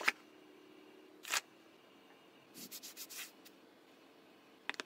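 Quiet handling sounds from unboxing a smartphone with cotton-gloved hands: a sharp click of the cardboard box at the start, a brief scrape a little over a second in, soft rubbing around three seconds in, and two small taps near the end.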